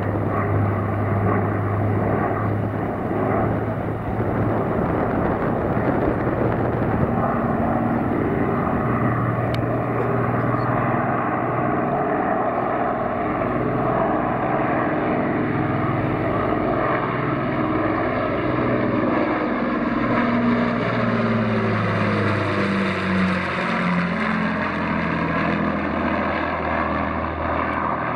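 Avro Lancaster bomber's four Rolls-Royce Merlin V12 piston engines droning in a low fly-past. The tone sweeps down and back up in a swirling way about two-thirds of the way through as the aircraft passes closest overhead.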